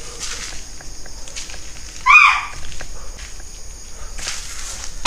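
Crickets chirping steadily, with footsteps on a concrete floor. About two seconds in, one short, high animal call sounds, rising then falling in pitch.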